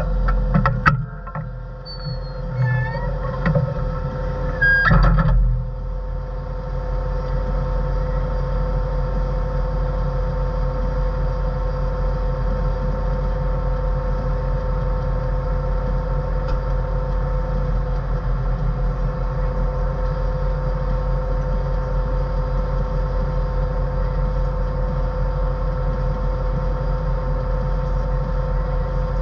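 Motor grader's diesel engine running steadily under load, heard from inside the cab as an even drone with a constant hum. In the first five seconds there are a few knocks and short high beeps.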